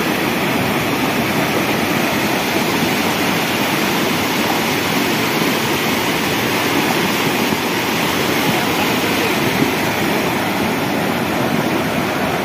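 Steady, loud rush of a rain-swollen, muddy mountain stream in flood, the fast water pouring over boulders and debris.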